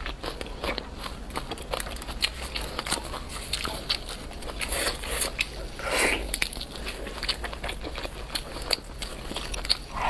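Close-miked eating of a whole spiced chicken: biting, chewing and tearing the meat from the bone by hand, with many small crackly clicks and a louder, longer noisy stretch about six seconds in.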